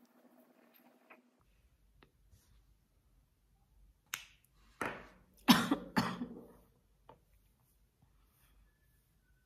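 Sharp clicks and smacks while lipstick is being put on, about five in three seconds from lipstick and cap handling and lip contact. The loudest comes about halfway through and rings on briefly.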